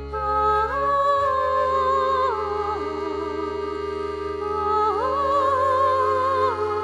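Background music: a slow, sustained melody over held bass notes that change twice.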